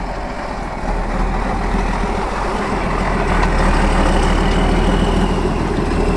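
Tatra 815 trial truck's diesel engine running at close range, a steady low drone that grows louder about a second in and again around the middle.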